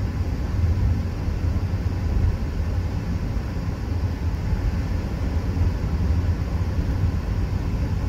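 Steady low rumble of road and engine noise inside a Mazda CX-30's cabin, cruising at about 50 mph with the engine near 3,000 rpm.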